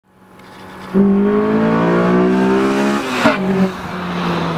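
Car engine revving hard: it swells in, then pulls at a slowly climbing pitch from about a second in. About three seconds in there is a brief sharp snap, after which it carries on at a lower pitch.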